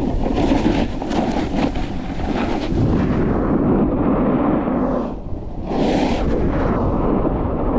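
Wind buffeting the microphone of a camera carried down a ski run at speed, a continuous low rumble. Over it, a snowboard's edges scrape across hard-packed snow in turns, a hissing scrape for the first three seconds and again briefly about six seconds in.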